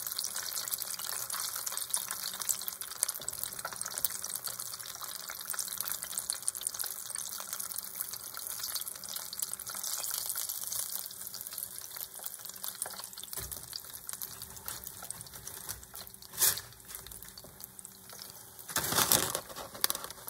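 Chicken pieces deep-frying in hot oil: a steady crackle and sizzle of bubbling oil that eases off slowly. Near the end come a short, sharp loud sound and then a louder one lasting about a second.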